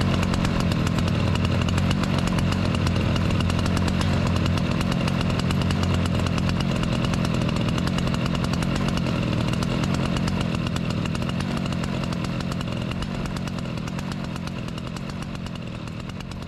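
An engine running steadily at an even speed, without revving, fading out over the last few seconds.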